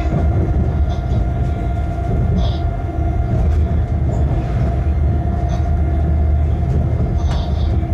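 Locomotive running light, heard from inside the cab: a steady low rumble with a constant whine over it, and a few short clicks as the wheels pass over points.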